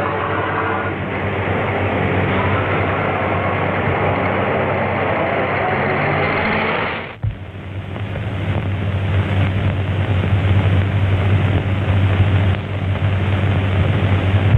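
Early-1930s car engine running as the cars drive by, cut off abruptly about seven seconds in. After that come the steady hiss and low hum of an old optical film soundtrack.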